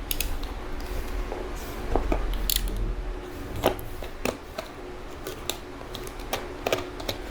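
A parcel being opened: irregular snips, clicks and rustles of scissors and plastic packaging.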